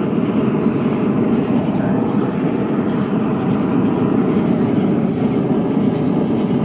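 Forge burner running with a steady, even rush of flame noise.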